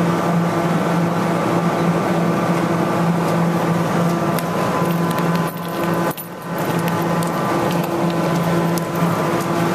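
Sega UFO Catcher claw machine running its grab cycle: a steady electric hum and motor whir with a pulsing tone, dipping briefly about six seconds in.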